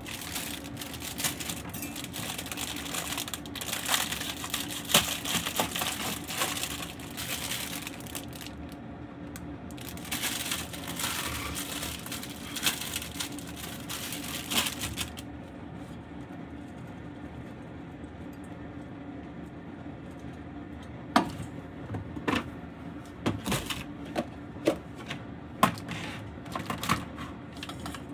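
Plastic food packaging crinkling and rustling as it is handled, in two long spells. Then a run of sharp knocks and clacks as plastic containers and utensils are set down on the steel counter, over a steady low hum.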